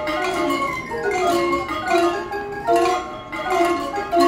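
A tune played on tuned metal chimes, notes struck one after another, several a second, each ringing on briefly.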